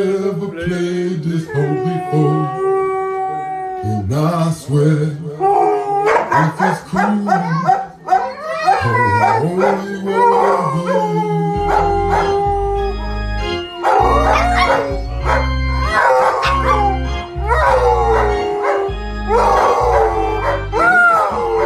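A grey-muzzled yellow Labrador-type dog howling along to music. The music's heavy bass beat comes in about halfway through.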